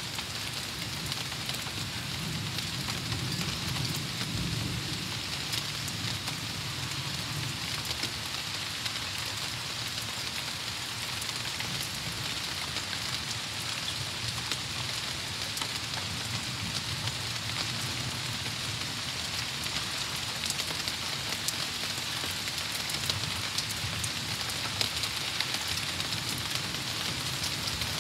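Steady rain falling on trees and lawn, an even hiss throughout, with a low rumble swelling and fading underneath.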